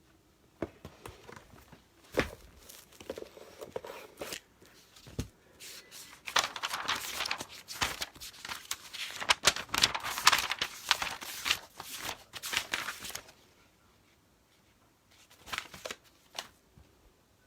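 Paper rustling and crinkling as documents are handled, with a few scattered clicks and knocks. A dense stretch of rustling runs from about six to thirteen seconds in.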